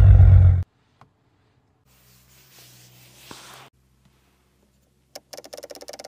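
Maserati Quattroporte Modena Q4's 3.0-litre twin-turbo V6 running loud and deep, cut off abruptly about half a second in. Near the end comes a quick run of light clicks, about ten a second, from the detents of the centre-console rotary control knob being turned.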